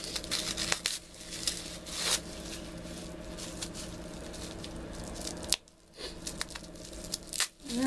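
Rustling, tearing and small clicks of packaging being handled and opened by hand, over a steady low hum. The sound drops out briefly twice in the second half.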